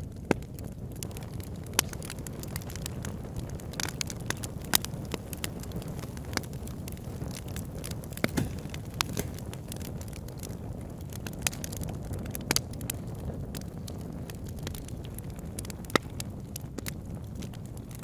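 Wood fire burning in a fireplace: a steady low rush of flames with frequent sharp, irregular crackles and pops.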